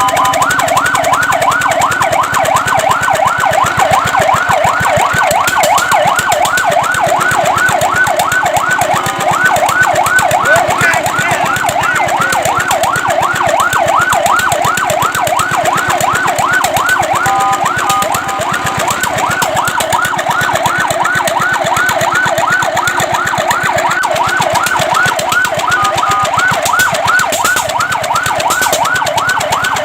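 Fire truck siren in a fast yelp, sweeping rapidly up and down about three times a second, with brief changes of pattern a few times.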